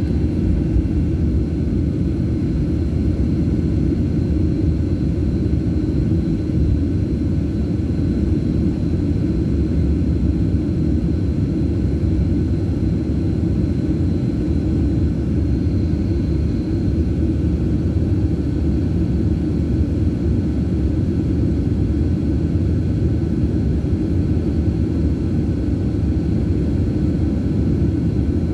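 Jet airliner cabin noise while taxiing: a steady low rumble from the idling engines and the wheels rolling over the taxiway, with a faint steady high whine.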